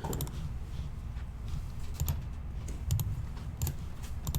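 A few separate clicks of computer keys, spaced irregularly, over a low steady hum.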